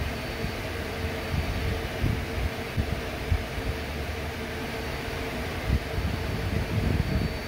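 Yang SMV-1000 CNC vertical machining center running a G84 tapping cycle with its spindle at about 100 rpm: a steady machine hum with a constant mid-pitched tone over an uneven low rumble.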